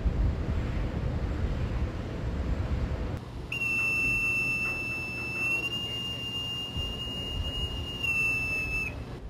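Wind rumble on the microphone, then a steady high-pitched tone like a buzzer. It starts about three and a half seconds in, holds for about five seconds with a slight rise in pitch midway, and cuts off near the end.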